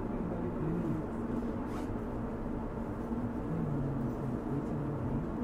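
Interior of a JR Kyushu 817-series electric train standing in the station: a steady equipment hum with a muffled voice wavering faintly through the car.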